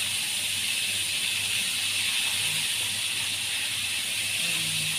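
Flour-coated chicken pieces deep-frying in a wok of hot oil: a steady, even sizzle.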